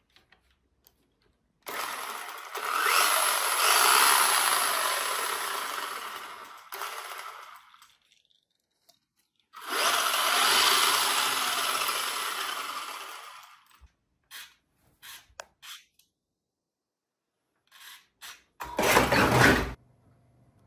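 Overmax X-Hooligan RC car's electric motor and 4x4 drivetrain spinning the wheels in the air under throttle: two long runs that build up and then wind down, a few short clicks, and a shorter burst near the end.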